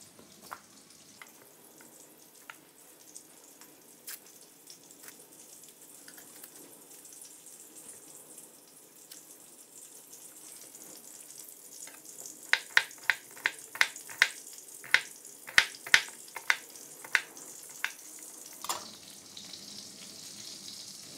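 Oil sizzling in frying pans, faint at first and louder near the end. About halfway through comes a run of a dozen or so sharp ticks, two or three a second.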